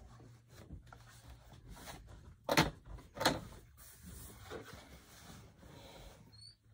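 Fabric pieces being handled, folded and smoothed by hand on a cutting mat: soft rustling and brushing, with two louder knocks about two and a half and three seconds in, over a low steady hum.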